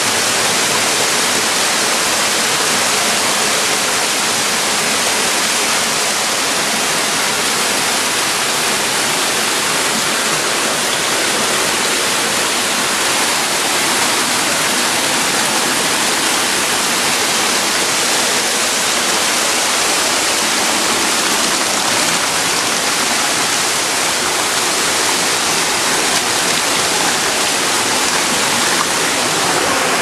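Waterfall pouring down a narrow rock gorge close by: a loud, steady rush of falling and splashing water.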